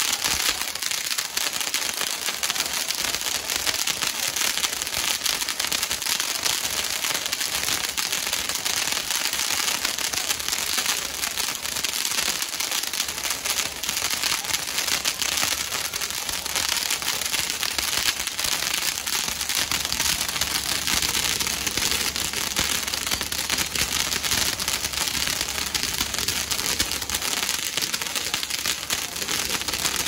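Smoky bamboo fireworks, a bamboo-pole rig of crackers spraying sparks from many arms, crackling continuously as a dense, even stream of tiny pops with no pauses or single loud bangs.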